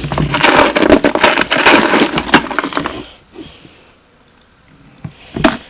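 Small loose metal hardware, mostly brads, clinking and rattling as it is stirred around in the bottom of a toolbox for about three seconds, then a single knock near the end.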